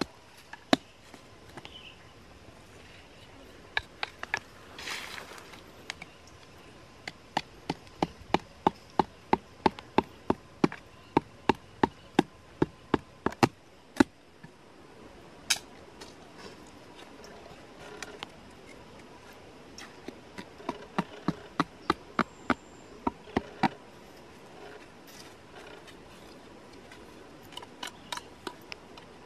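A hand blade chopping a dry stick on the ground: a run of sharp knocks about two a second, lasting several seconds, then two shorter runs later on.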